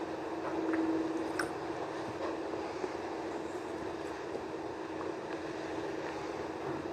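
A steady hum holding one constant pitch over an even rushing background noise, with a few faint ticks about a second and a half in.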